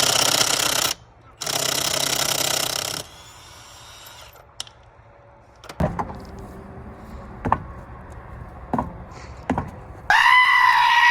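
Impact wrench hammering on lug nuts in two bursts, one of about a second and one of about a second and a half, followed by a few separate knocks and clinks. Near the end a steady pitched tone with overtones sounds for about a second and a half.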